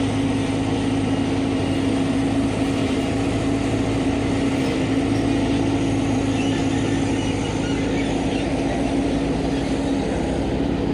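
Road roller's diesel engine running steadily at a constant speed, with an even hum.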